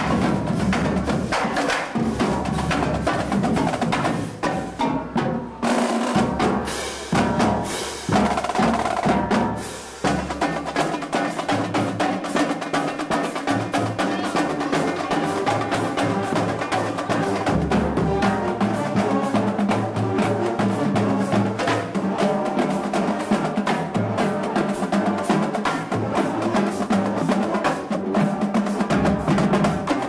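Marching band playing on the march: snare and bass drums keep a steady, driving beat with sharp stick clicks, while sousaphones, trumpets and trombones play held notes over it. The music is stop-start for the first ten seconds or so, then runs steadily.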